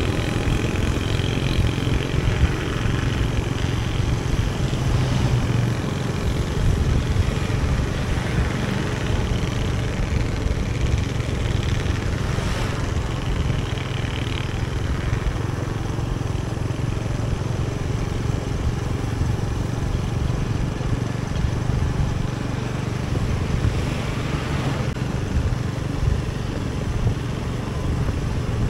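Motorcycle being ridden along, its engine and the road noise making a steady drone.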